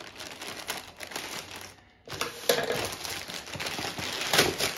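Package wrapping being opened by hand: crinkling and rustling, with a brief pause about two seconds in and a sharper, louder crackle near the end.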